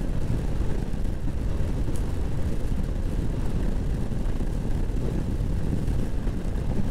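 Steady low wind rumble over the microphone of a Honda PCX scooter riding at road speed on a wet road.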